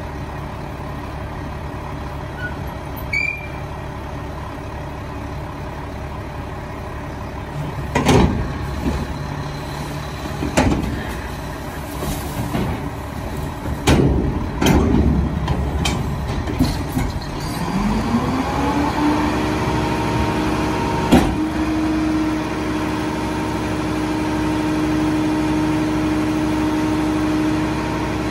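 Mack LR rear-loader garbage truck running at idle, then a run of bangs and clanks from about 8 to 17 seconds in as a dumpster is worked at the rear hopper. The engine then speeds up and holds a steady higher note, as for running the body's hydraulics, with one more sharp bang.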